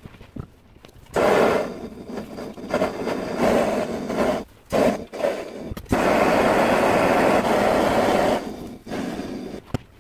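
Blow lamp flame burning while copper pipe joints are soldered. It comes in two long steady spells, from about a second in to four and a half seconds and from about six to eight and a half seconds, with short breaks between.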